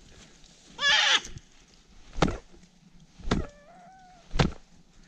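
Wounded hare screaming: a loud, bleating cry about a second in, then a thinner wavering squeal. Three dull thumps about a second apart come through the cries.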